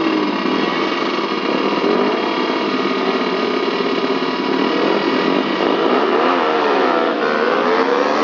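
Small motorcycle engines running hard under acceleration. Their pitch rises and drops several times in the last couple of seconds, as with revving through the gears.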